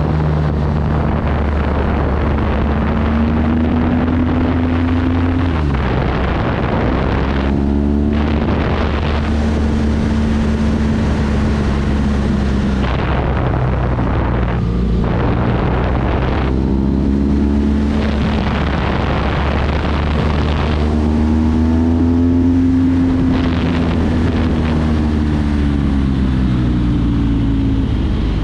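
Motorcycle engine running under way, its pitch rising and falling through the bends, with sudden drops in pitch at gear changes about six and sixteen seconds in, over a steady rush of wind.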